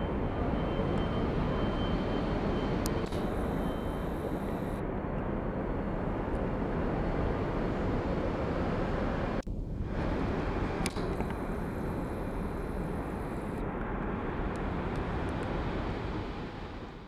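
Steady rumbling noise of a railway station platform, with a brief break about halfway through, fading out at the end.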